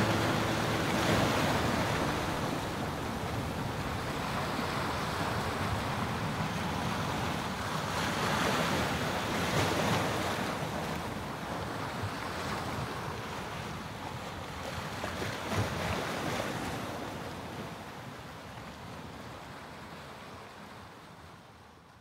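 Sea surf on a rocky shore: waves washing and breaking in a steady rush that swells and ebbs a few times, then fades out near the end.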